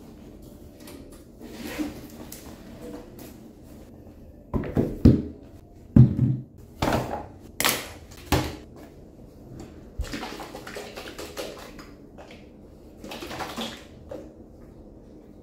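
Household handling sounds: a run of sharp knocks and clatters in the middle, the loudest two close together, then a few brief swishing or rustling noises.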